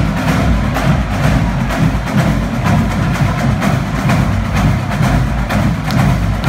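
Music with a steady percussive beat and heavy bass.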